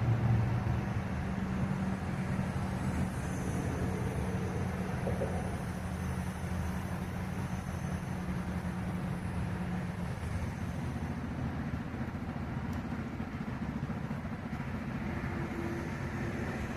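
A heavy vehicle engine running steadily, a low droning hum that eases a little about ten seconds in.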